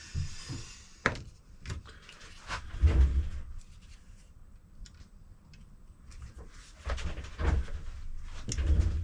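Handling noise from working on an opened laptop: sharp clicks and knocks, with two longer spells of scraping and dull thumps, the second near the end.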